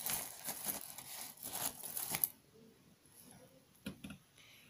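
Strands of small pearl beads on a beaded hand chain rustling and clicking against each other as they are handled, for about two seconds, then one soft knock.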